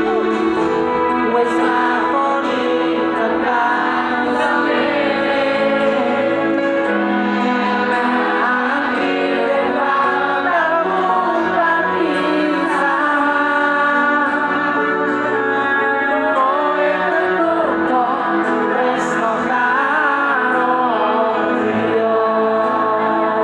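Live concert music with singing, played over the stage PA and heard from within the crowd: a voice carries a sustained melody over held instrumental notes.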